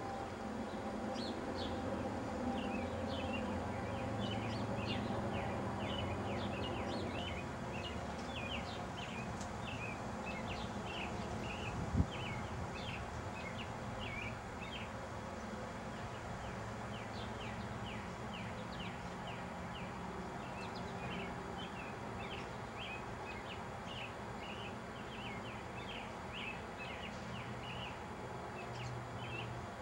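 Birds chirping: short, high calls, two or three a second, over a steady low hum, with a single sharp click about twelve seconds in.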